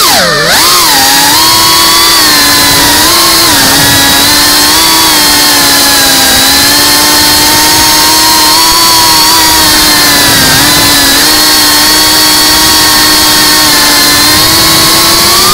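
FPV quadcopter's brushless motors and propellers whining, recorded on board. The pitch dips and swoops about a second in, holds fairly steady through the middle with small wobbles, and climbs sharply near the end as the throttle changes.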